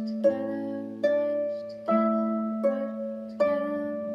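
Irish lever harp played hands together: a slow phrase of plucked notes, a new note about every three-quarters of a second, five in all. Each note rings on over a low bass note that comes in shortly after the start.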